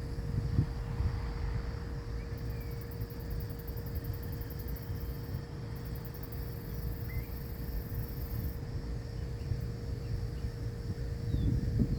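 Outdoor ambience: a low steady rumble under a high, rapid insect trill that sounds for several seconds in the middle, with a few faint bird chirps.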